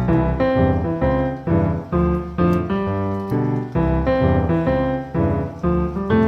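Background piano music, with notes struck roughly every half second.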